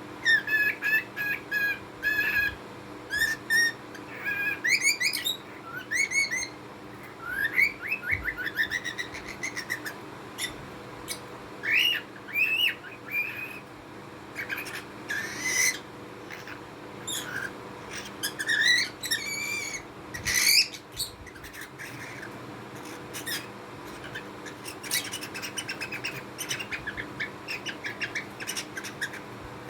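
Small cage birds chirping and whistling in a busy run of short calls and rising whistled glides. Near the end the calls become quieter and quicker.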